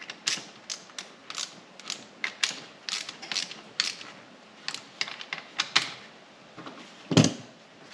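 Small ratchet wrench clicking in short, irregular strokes as it tightens the clamp that holds a brake line in a flaring tool. A louder single knock comes about seven seconds in.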